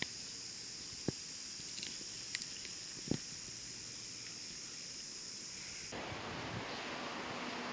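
Outdoor ambience: a steady high-pitched drone with a few faint clicks. About six seconds in it cuts off abruptly and a louder, wider rushing hiss takes over.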